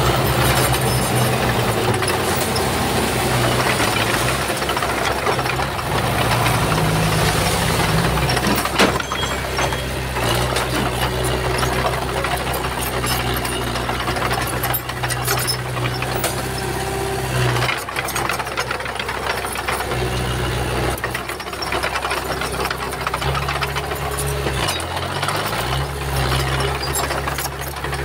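Diesel engine of a Komatsu bulldozer running under load, with steady metallic rattling and clatter over the engine note. There is one sharp knock about nine seconds in, and near the end the engine briefly drops in pitch and picks up again.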